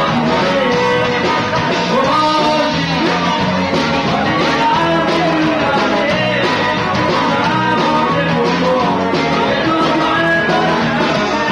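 Live band playing dance music: a male singer over electric guitar and drums.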